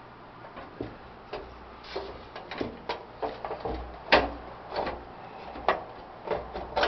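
Irregular light metal clicks and knocks as the burner assembly of a Coleman 413-H camp stove is worked back into the stove's case. The loudest knock comes about four seconds in.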